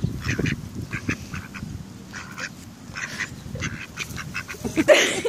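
Mallard giving a string of short, harsh quacks, two or three a second, with a louder burst near the end.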